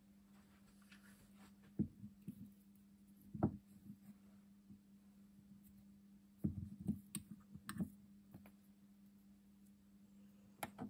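Small metal Humbrol enamel paint tins being set down on a cork-covered baseboard: a few light knocks and clinks, most of them in a cluster about six to eight seconds in. A faint steady low hum runs underneath.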